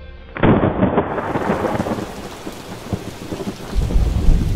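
Thunderstorm sound effect: a sudden crack of thunder about half a second in, then steady rain, with a deep rolling rumble of thunder near the end.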